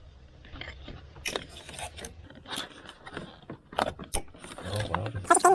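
Hands working plastic clips and wiring-harness cables: an irregular run of sharp clicks, crackles and scrapes.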